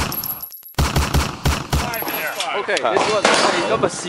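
Two bursts of rapid automatic gunfire, about five shots a second, with a short gap between them, the second stopping about two seconds in; then overlapping voices talking.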